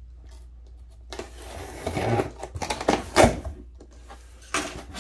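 A box cutter slitting the packing tape along a cardboard box's seam, then the cardboard flaps being pulled open and folded back with scraping, rustling and a few sharp knocks, the loudest a little after three seconds in.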